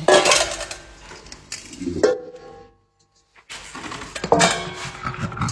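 Stainless steel dog bowls handled and set down on a hard floor: a few metallic clanks and scrapes, one ringing briefly as it fades. The sound cuts out completely for about a second in the middle.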